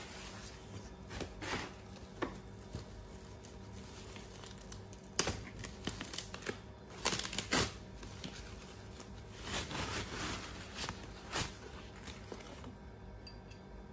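A white protective wrap rustling and crinkling as it is lifted out of a cardboard monitor box, with scattered light knocks from the cardboard being handled. The loudest rustles come about five and seven seconds in.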